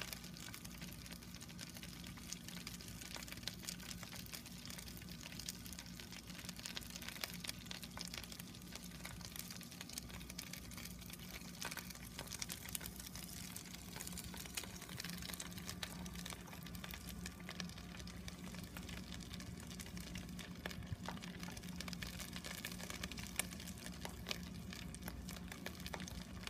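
Karaage chicken deep-frying in hot oil: a steady sizzle of dense fine crackles, with a low steady hum underneath.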